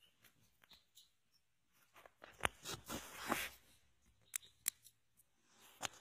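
European goldfinches feeding at a seed dish: scattered sharp pecking clicks and seed crunching, with a short busier patch of crunching about two and a half seconds in.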